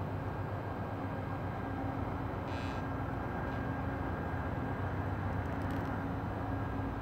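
Steady low rumble and hum of a distant diesel passenger train approaching the station, with a brief hiss about two and a half seconds in.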